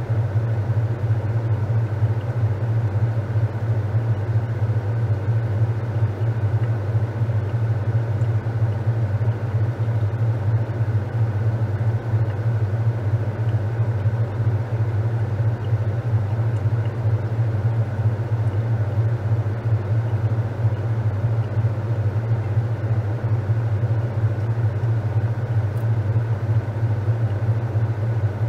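Top-loading washing machine running with a steady low hum.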